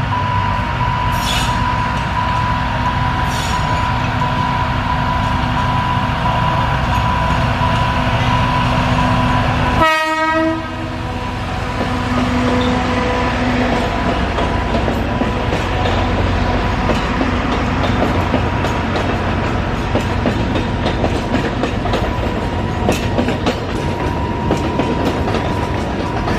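Alishan Forest Railway train's diesel locomotive running as the train pulls out, with one short horn blast about ten seconds in. A steady high tone sounds underneath for the first part.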